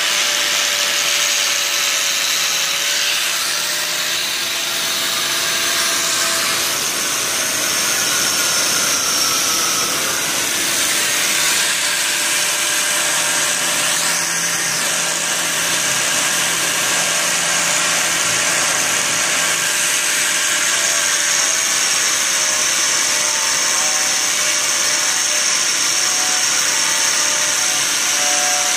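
Handheld angle grinder with a cloth buffing wheel running steadily against a steel panel, its motor whine over the rushing sound of the buff rubbing the metal. The whine dips briefly about ten seconds in as the wheel is pressed on.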